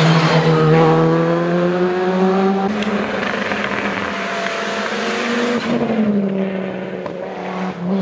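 Rally cars at speed on a tarmac special stage, one after another: a Škoda Fabia R5 accelerating hard out of a corner, its engine note climbing, then, after a cut, another car's engine, with the Audi Quattro's turbocharged five-cylinder among them. The sound breaks and restarts about a third and two-thirds of the way through where the passes are edited together.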